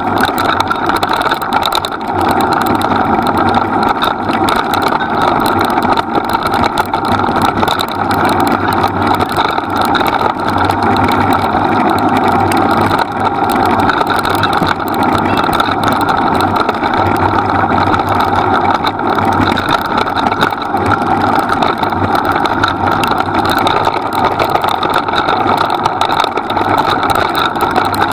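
A vehicle's engine running steadily at an even speed while the vehicle moves, with no pauses or changes in pace.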